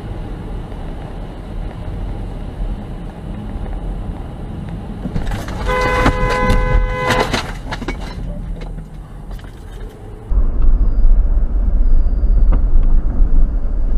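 Tyre and road noise inside a moving car. About six seconds in, a car horn sounds for about a second and a half as a warning to a car cutting in close. About ten seconds in, a louder low rumble starts suddenly.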